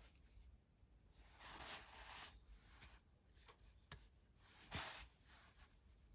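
Tarot cards being handled: faint swishes of cards sliding and rubbing, with a few light taps.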